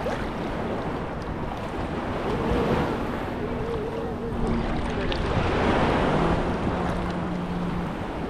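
Sea waves surging and washing up the beach, swelling to their loudest a little past the middle, with wind buffeting the microphone. A low, steady engine drone runs underneath.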